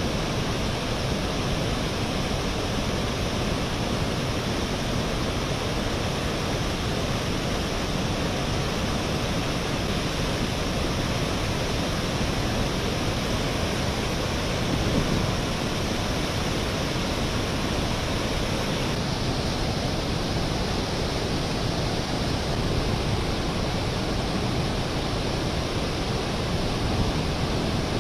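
Steady, even rushing noise with no tones or voices; its upper hiss shifts slightly about two-thirds of the way in.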